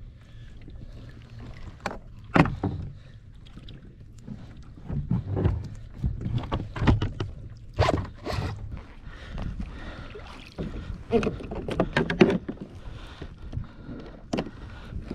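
Scattered knocks and clunks on the deck of a plastic Hobie Revolution 13 pedal kayak as things are handled on board, over a steady low rumble of wind and water. The sharpest knocks come about two and a half seconds in, around eight seconds, and in a cluster near twelve seconds.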